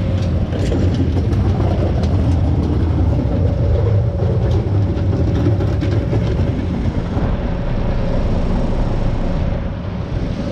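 American Standard Silver 14 heat pump outdoor units running steadily in heat mode: a low hum with a steady tone from the compressors and fans. Over the first half a wheeled trash can is rolled past, adding a loud clattering rattle that fades out.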